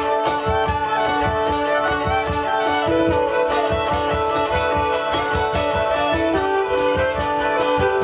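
Live folk band playing an instrumental passage: fiddle and hurdy-gurdy melody over the hurdy-gurdy's steady drone, with a strummed long-necked plucked string instrument and a cajón keeping an even beat.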